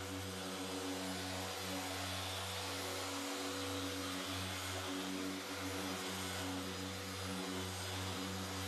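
Electric paint-polishing machine running steadily, a constant motor hum with a hiss above it.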